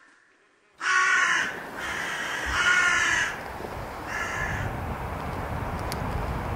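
A crow cawing about four times, harsh calls starting about a second in. A low rumble grows underneath in the second half.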